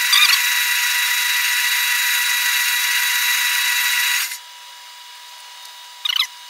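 Metal lathe running under power during a light spring pass with a boring bar, a steady machine whine with a constant pitch that cuts off suddenly about four seconds in when the lathe is switched off.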